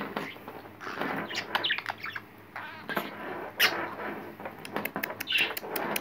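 Budgerigar chirping and squawking in short calls, a bird its owner takes to be angry with her. A rapid run of sharp clicks comes near the end.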